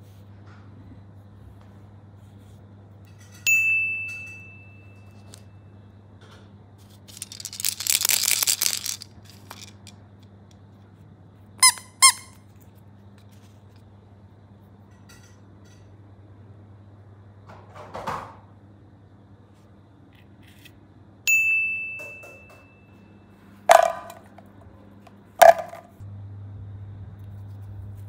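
A string of separate short toy sounds: sharp squeaks of rubber toys being handled, two bright dings that ring out and fade, and a brief hissing burst, over a steady low hum.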